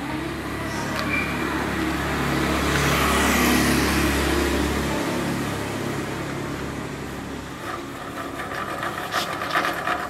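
Homemade pedal drive turned by hand: a bicycle crank and chain spinning an angle-grinder gear head and a long steel propeller shaft, whirring steadily. It is loudest a few seconds in, eases off, and ends in a run of rattling clicks from the chain and gears.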